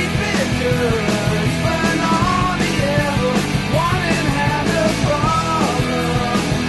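Background rock music with a drum beat and a wandering melody line.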